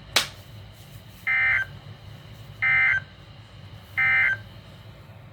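Emergency Alert System end-of-message data bursts played through a Midland WR120 weather radio's speaker: three short, identical warbling digital bursts about 1.4 s apart, signalling the end of the NOAA Weather Radio required weekly test. A sharp click comes just before them.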